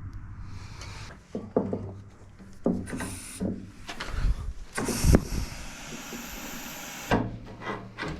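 A series of knocks, clunks and scraping from things being handled, the loudest knock about five seconds in, with a hissing rush lasting about two seconds after it.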